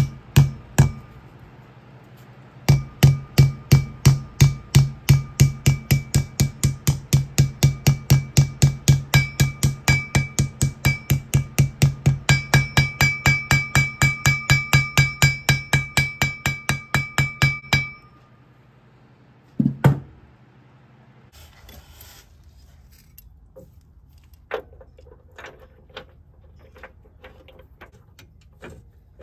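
A hammer tapping steadily into the hub of a Dodge Ram 3500 front brake rotor, about three or four blows a second, seating a new wheel bearing part. Each blow sets the cast-iron rotor ringing. The tapping stops about 18 seconds in, and one more blow follows.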